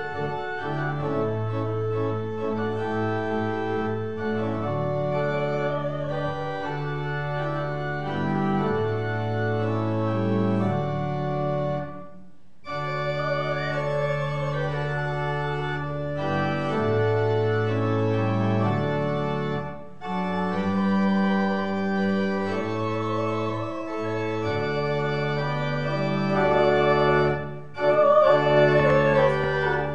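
Church pipe organ playing slow, sustained chords in phrases, with short breaks between phrases.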